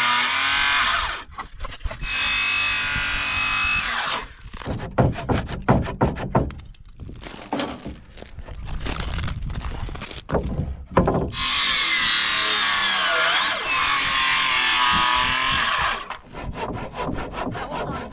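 Power saw cutting through lumber in three passes: one ending about a second in, one from about two to four seconds, and a longer one from about eleven to sixteen seconds, the motor's whine wavering under load. Between the cuts come irregular knocks and rattles of wood being handled.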